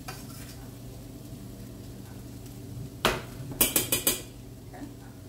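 Stainless steel saucepan clanking as it is set down on the stovetop about three seconds in, followed by a quick run of four metal clinks, over a low steady hum.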